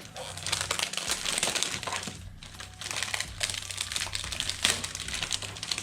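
Plastic packaging crinkling and rustling with small irregular clicks as it is handled and pulled off a keyboard's USB cable, with a short pause about halfway through.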